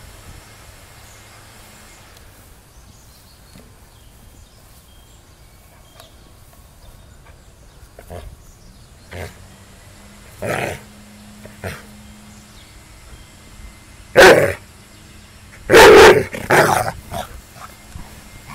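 Dog barking: a few short single barks in the second half, the loudest two near the end, with a long quiet stretch before them.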